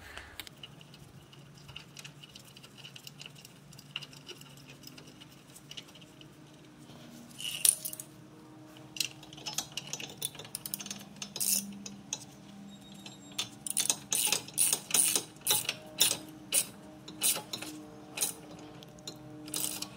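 Socket ratchet with an extension turning a bolt: sharp metallic ratchet clicks, about two a second, through the second half, after a lone click earlier on.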